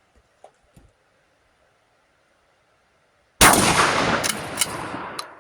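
A single loud blast from a Remington 12-gauge shotgun about three and a half seconds in, its echo dying away over about two seconds, with a few sharp ticks within the echo.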